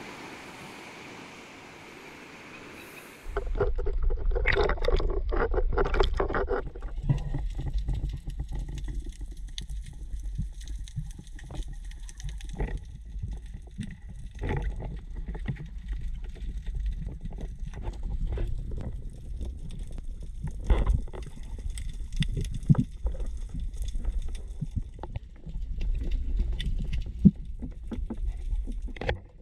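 Small waves washing on a rocky shore for about three seconds. Then the low rumble of a camera held underwater, as water moves against its housing, with scattered clicks and knocks from the freediver's movement.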